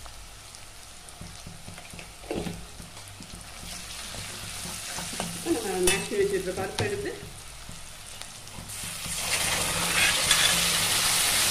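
Shallots, curry leaves and dried red chillies frying in oil and ghee in an aluminium kadai, with a ladle clinking and scraping against the pan. About nine seconds in, mashed toor dal is poured into the hot oil and the sizzle jumps much louder.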